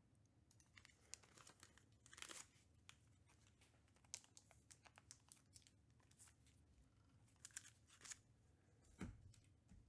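Near silence, broken by faint, scattered crinkling and tearing of packaging, with a few soft clicks.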